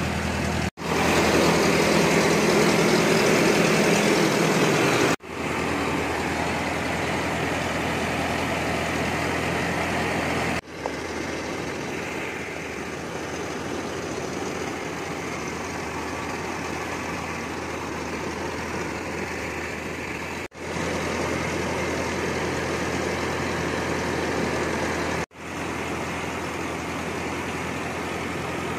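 Rice mill running steadily while milling palay: a constant engine drone under a loud whirring rush, as milled rice streams out of the chute. The sound cuts out for an instant five times, and is loudest in the first few seconds.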